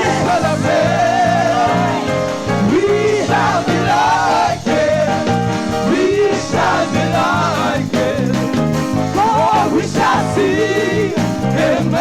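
Live gospel worship music: keyboard and band playing steadily, with a voice or lead line sliding through curving runs above the chords.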